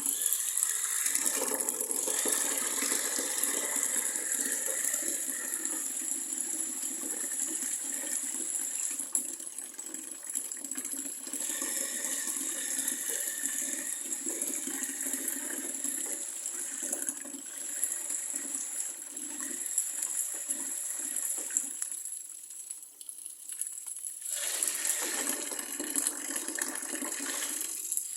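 Amphibious RC car driving through water: churning, rushing water with a steady high-pitched whine on top. It drops away for a moment about three-quarters of the way through, then picks up again.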